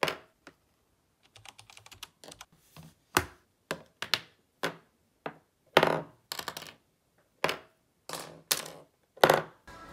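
A run of irregular sharp clicks and taps on hard surfaces. Several louder knocks, about two seconds in and again near the end, carry a short ring.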